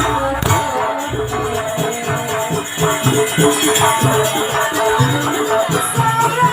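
Jaranan ensemble music playing a sampak piece for the dance: a melody line over steady, repeated drum strokes and jingling percussion.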